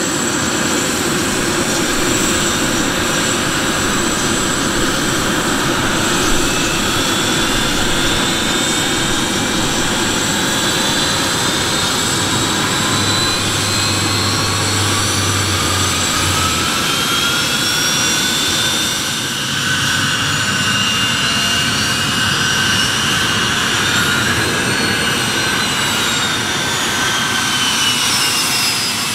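Honeywell TFE731 turbofan of a Gulfstream G100 (Astra SPX) business jet running close up, a rushing hiss under a whine that slowly rises in pitch as the engine spools up. After about 19 seconds the engine's whine rises and then falls again.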